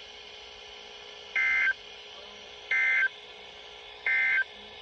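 Emergency Alert System end-of-message signal: three short, identical bursts of SAME digital data tones, about 1.3 seconds apart, over a faint steady hum. They mark the end of the alert.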